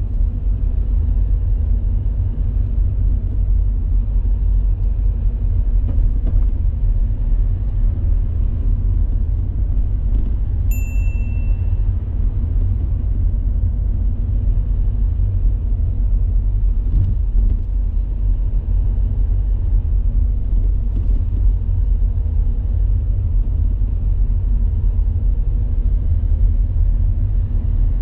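Steady low rumble of a car's engine and tyres heard inside the cabin while driving. A single short high-pitched beep sounds about a third of the way in.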